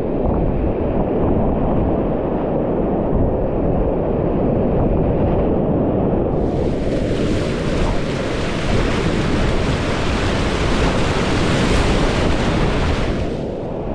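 Loud, steady rush of whitewater rapids. It is dull and muffled for about the first six seconds, turns into a bright, full hiss, and dulls again just before the end.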